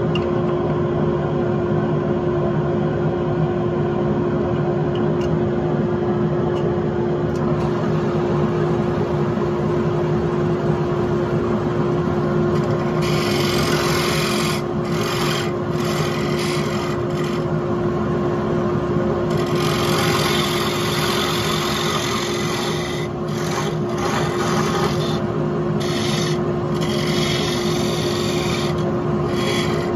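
Wood lathe running with a steady motor hum. From about 13 seconds in, a turning tool cuts the spinning wood in repeated passes, a hissing scrape that starts and stops as the tool goes on and off the work.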